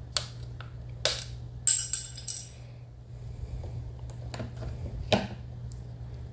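A few sharp clicks and light clinks of small hard parts being handled as the cap is taken off a carbon fiber mirror's base; one clink rings briefly about two seconds in, and the loudest click comes about five seconds in.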